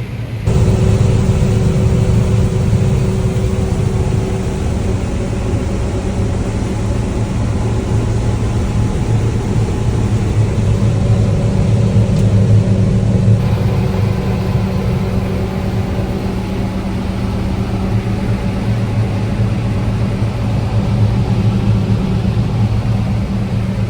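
Large farm machine's engine running steadily, a continuous low hum that begins abruptly about half a second in.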